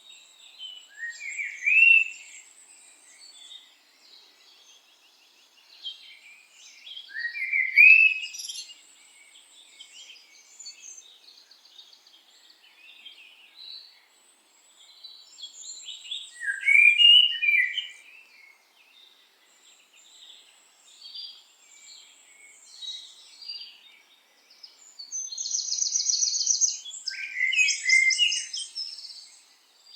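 Several birds singing and chirping together, with one louder bird repeating a short, rising phrase four times, about every eight to ten seconds. Near the end a high, buzzy trill joins in.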